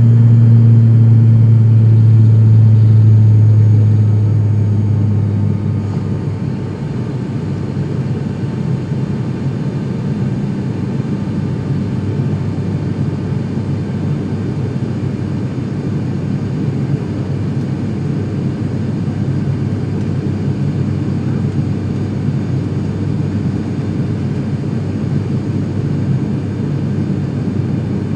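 Turboprop airliner's engine and propeller heard from inside the cabin during the climb after takeoff: a loud, low propeller hum that eases off about five seconds in, then settles into a steady drone.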